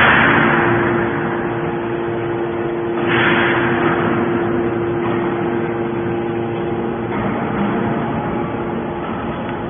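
Hydraulic baler running: a steady machine hum, with two hissing surges about three seconds apart, each fading over about a second.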